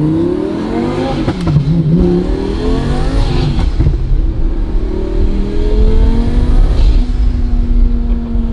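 Turbocharged Lamborghini Murciélago V12 accelerating hard, heard from inside the cabin. Its pitch climbs, dips at a gear change about a second and a half in, climbs again for several seconds, and drops at another shift near the end before settling.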